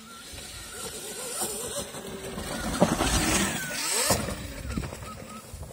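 Zero FX electric dirt bike riding up and passing close by, its motor whining up and down in pitch with the throttle. It is loudest as it goes past, about three to four seconds in, then fades as it rides away.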